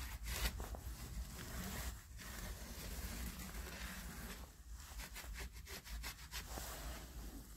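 Hand rubbing and scrubbing the rusty face of a brake drum, an uneven scraping with short pauses about two seconds in and again around four and a half seconds.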